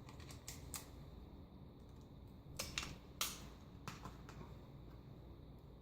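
Faint, scattered light clicks and taps of hands handling a laptop's LCD panel and plastic parts: a quick run of clicks at the start, then a few single clicks.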